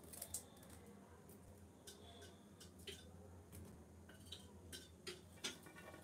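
Faint, irregular clicks and crackles, about a dozen, scattered with no steady rhythm, the strongest near the start and near the end: a nesting pigeon working her beak through the dry straw of her nest.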